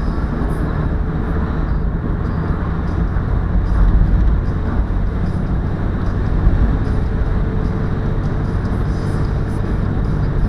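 Mazda MX-5's four-cylinder engine running at a steady cruise with tyre and road noise, heard from inside the car as a steady low drone.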